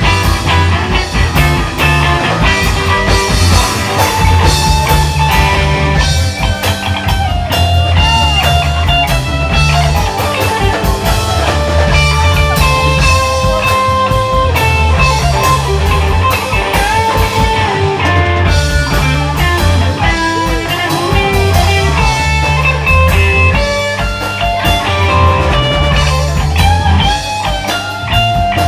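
Rock music with electric guitar, bass and drums.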